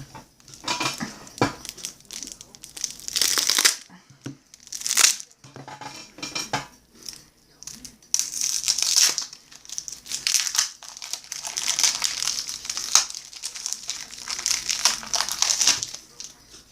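Crinkling and rustling as baseball cards and their pack wrapper are handled: a few short bursts, then a long run of continuous crinkling from about halfway through.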